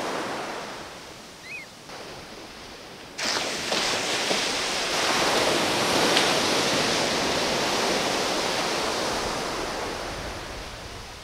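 Surf breaking on the beach: a wave crashes about three seconds in and its wash slowly fades away. A short high chirp sounds about a second and a half in.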